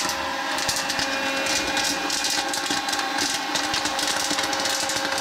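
Ringling Brothers cannon-shaped hot-air popcorn popper running: its fan motor gives a steady hum with a blowing hiss, and scattered light pops and ticks come from kernels popping and being blown out of the chute.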